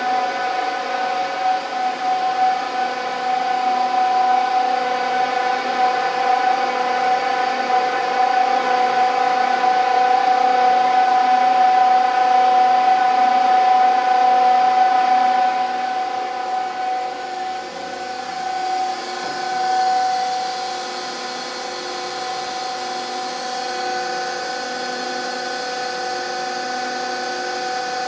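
Paul O Abbe stainless ribbon blender running empty, its drive giving a steady mechanical whine of several held tones over a rushing noise. The sound grows louder, then drops somewhat about two-thirds of the way through.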